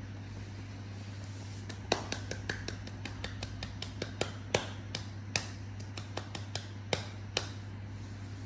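Irregular sharp clicks and taps, about a dozen spread over several seconds with the loudest a little past two and five seconds in, over a steady low hum.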